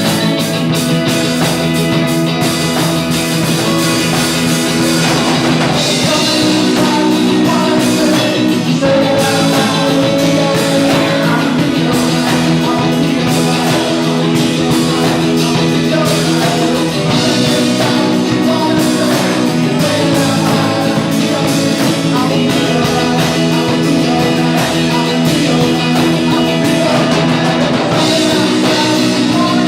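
Rock music: a band with guitar and drum kit playing at a steady level, with sung vocals at times.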